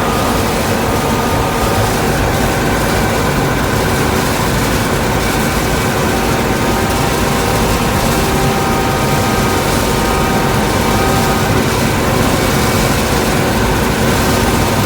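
Corn-harvesting machinery running steadily: a heavy engine under continuous load, with a steady whine from its working parts.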